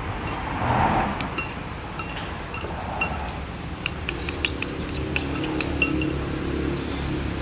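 Spoon and chopsticks clinking against a small noodle bowl while eating, in many quick, irregular clinks that come thicker about four seconds in. A low rumble sits underneath.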